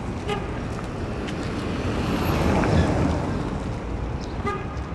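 Street traffic noise, with a car driving past whose sound swells to a peak about midway and then fades away.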